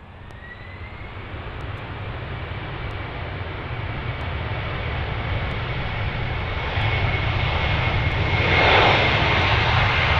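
Jet engines of a Boeing 767 freighter rolling past at high power. The noise builds steadily and is loudest near the end, with a high fan whine holding one pitch throughout.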